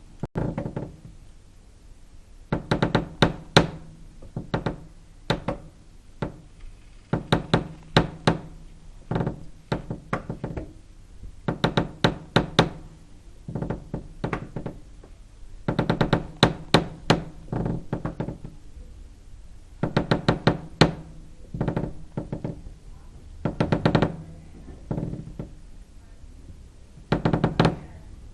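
Heavy knocking in irregular flurries of several rapid blows, a second or two apart, with a low hollow ring after the blows: a horror sound effect of pounding.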